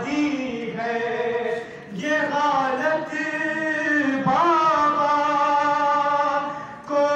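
A young man's voice chanting an Urdu noha, a mourning lament, into a microphone, in long held, wavering notes. He breaks off briefly about two seconds in and again near the end.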